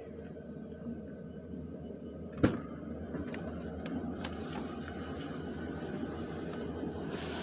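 BNSF diesel locomotives rolling past with a steady low rumble. A single sharp knock comes about two and a half seconds in, followed by a few lighter clicks.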